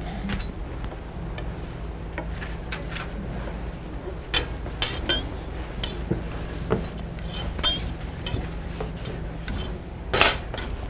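Metal utensils and trays clinking and tapping on a steel work counter as cakes are cut and handled: scattered sharp clinks, loudest about four seconds in and again near the end, over a steady low hum.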